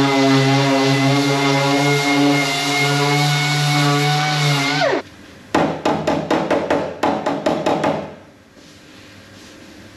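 Air-powered orbital sander whining steadily on a bare metal car body panel, then winding down as it is released about five seconds in. Then a hammer taps the metal panel quickly and lightly, about six taps a second, for a couple of seconds while the panel is shaped.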